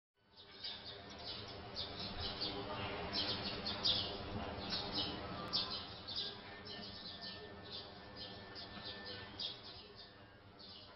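Small birds chirping and tweeting in quick, repeated calls over a soft, sustained musical bed, as the quiet intro of a pop song.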